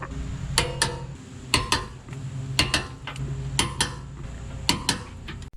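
Wrench clicking as the rear bumper bolts are torqued down: sharp metallic clicks in pairs, roughly once a second, five times, over a faint steady hum.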